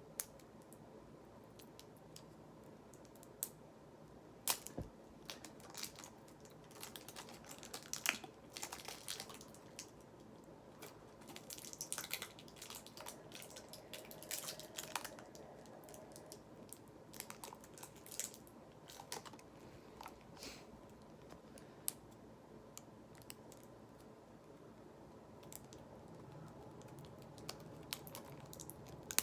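Irregular small clicks, taps and crinkling of plastic packaging being handled and pulled open, with a few louder crinkly stretches.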